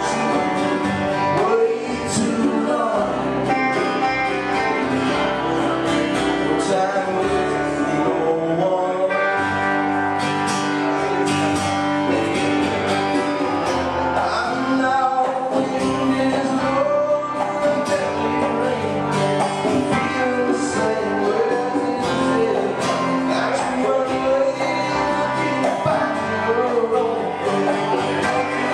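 Live band music: guitar-led, country-style playing with a man singing lead.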